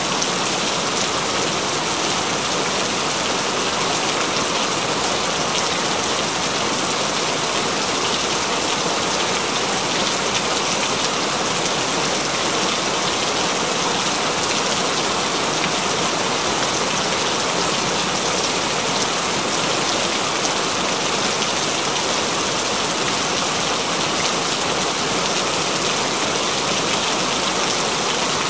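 Continuous rain falling steadily: an even hiss made of countless fine drop ticks, unchanging throughout.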